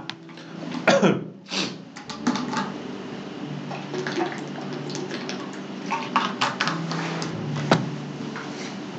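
Water being poured and drunk: liquid splashing and filling sounds with small clicks and gulps, more irregular after the first two seconds.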